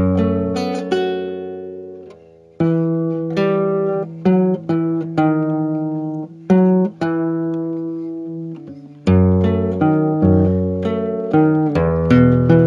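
Background music: an acoustic guitar playing an instrumental interlude between the verses of a sung folk song, plucked notes and chords that ring and die away, with a brief pause about two seconds in.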